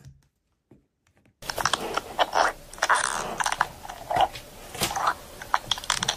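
Packed green kinetic sand crunching and crumbling as a plastic spoon cuts into it and scoops it out: a string of crisp scrapes and small clicks that starts after about a second and a half of near silence.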